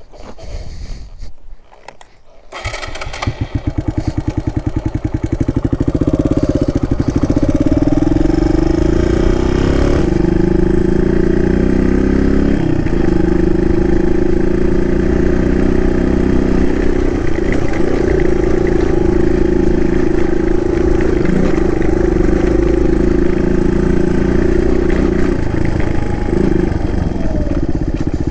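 Suzuki DR200's single-cylinder four-stroke engine starting about two and a half seconds in, then running under way, its pitch rising and dropping with gear changes over the next several seconds before settling into a steady cruise.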